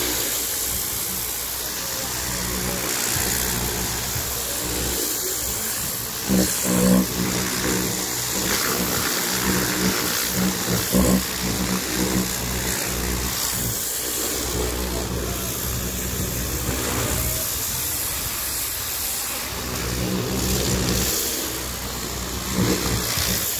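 Electric high-pressure plunger-pump car washer running steadily, its motor giving an even hum with a constant hiss over it.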